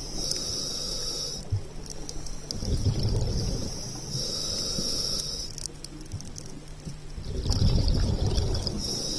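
Scuba regulator breathing underwater: a hissing inhale through the demand valve, then a low, bubbling exhale as the bubbles vent, repeating about every four seconds.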